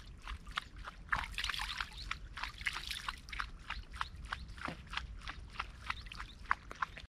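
Small water splashes and drips at a pond's edge, a quick irregular patter of many light splashes as a hand pats and flicks the water surface.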